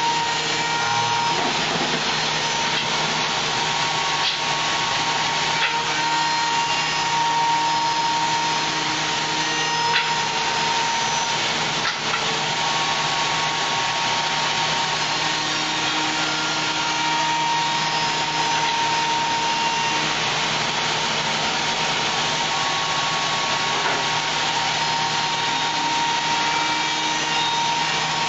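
CNC wood-shaping machine's spinning cutter milling a curved wooden leg, chipping away the wood: a steady machining noise with a constant whine running through it.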